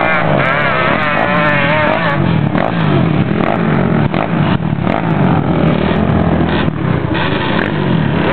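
Several sport ATV engines revving, their pitch repeatedly rising and falling with throttle and gear changes as the quads ride and climb the sand.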